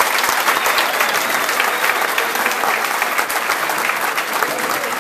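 A large crowd applauding steadily, many hands clapping at once, with a few voices mixed in.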